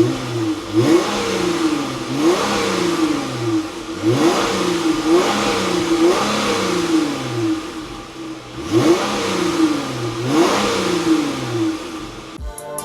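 Dodge Charger SXT's 3.6-litre V6 revved through a dual 2.75-inch stainless cat-back exhaust: a series of quick throttle blips, each rising sharply in pitch and falling back, about one a second, with a short lull in the middle.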